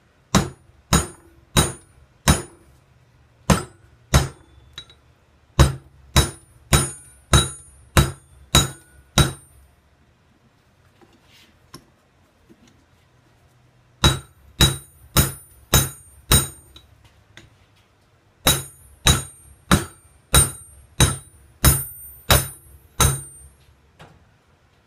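Hand hammer striking a red-hot railroad spike held in tongs, forging the head flat. The blows come in runs of about two a second, each with a bright metallic ring, broken by pauses of a few seconds.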